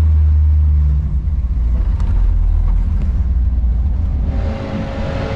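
AMC Javelin AMX's 401 V8 engine running with a steady low drone. About four seconds in, the low drone drops away and a higher hum with a few held tones takes over.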